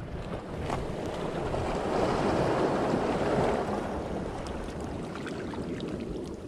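Shallow seawater sloshing and washing around, louder for a couple of seconds in the middle, with wind rumbling on the microphone and a few faint clicks.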